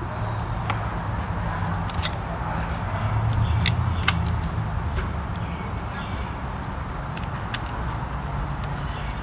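A few sharp metallic clicks and taps from hand tools working a battery cable terminal down onto its post, over a steady low hum.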